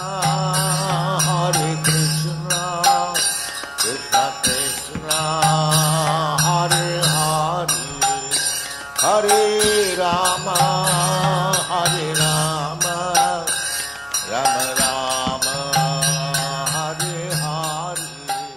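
Devotional mantra chanting: a solo voice sings wavering, ornamented lines over a held low drone note. It comes in phrases about every five seconds, and the drone drops out briefly between them.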